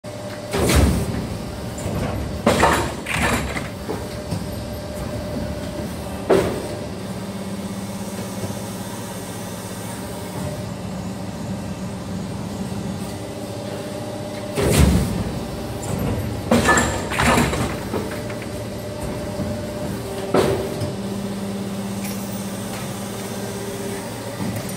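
Cap injection moulding machine running, with a steady motor and pump hum made of several low tones. Loud clunks with short hisses break in every few seconds, several of them in pairs, as the machine cycles.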